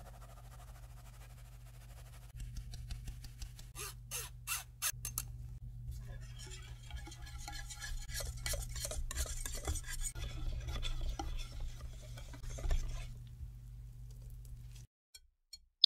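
A few sharp taps about four seconds in, then a wire balloon whisk stirring matcha powder and cake flour into a wet batter in a glass bowl, its wires scratching and clinking against the glass in quick strokes for several seconds.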